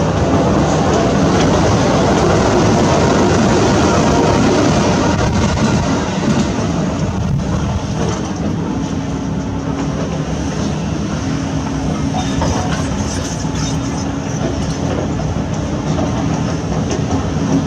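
Heavy construction machinery at work: a diesel excavator engine running with a steady hum, under a rough, loud clatter for the first six seconds or so that then eases to a steadier running sound.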